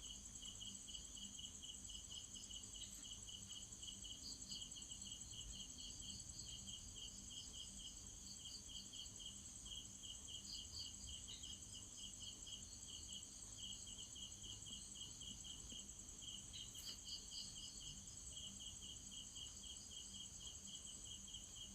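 Crickets chirping faintly in a steady, evenly pulsed trill, over a continuous high insect drone.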